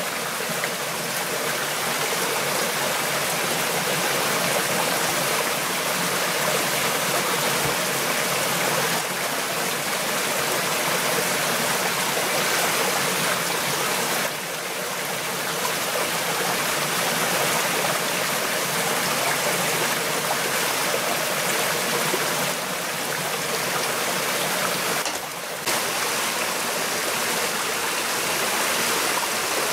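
Steady rushing of flowing water, like a forest stream, that shifts slightly in level a few times.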